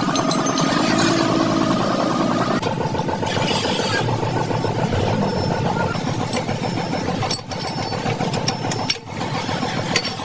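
An engine running steadily, its pitch shifting about two and a half seconds in, with two brief drops in level near the end.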